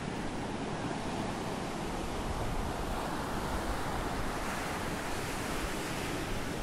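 Ocean surf breaking and washing up the sand, a steady rush that swells about halfway through, with wind rumbling on the microphone underneath.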